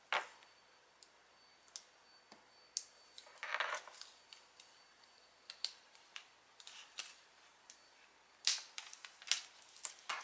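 Heat transfer vinyl being weeded with a weeding pen: scattered light ticks and crinkles as scraps are picked off the clear carrier sheet, a short rustle about three and a half seconds in and a run of them near the end.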